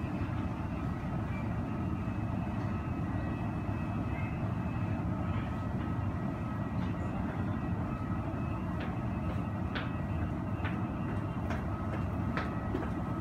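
Steady low rumble of airport apron and terminal noise heard through window glass, with a faint steady whine above it and a few light clicks late on.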